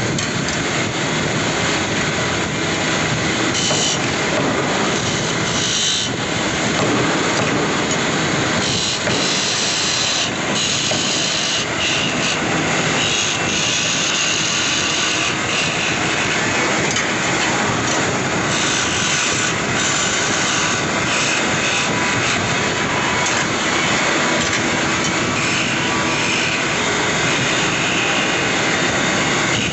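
Wood lathe running, with a turning tool working the spinning workpiece: a loud, steady noise with a hissing top.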